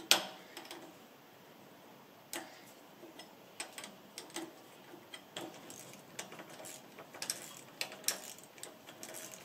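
Scattered light clicks and taps of hand work as new ball joints are fitted to a car's gear-shift linkage, irregular and spaced a second or so apart, the sharpest right at the start.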